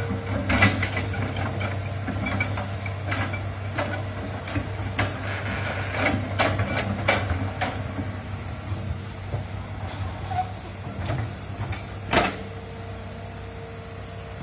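Hydraulic excavator's diesel engine running steadily under digging load, with repeated metallic clanks and knocks from the bucket and boom linkage as it scoops soil from a ditch. A sharp, loud clank comes about twelve seconds in.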